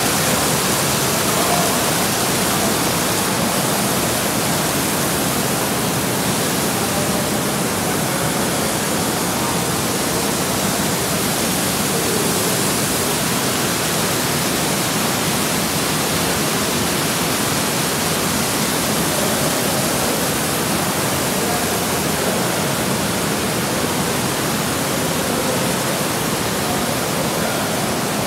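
Water jets and spouts pouring and splashing steadily into pools, a continuous rushing with no breaks.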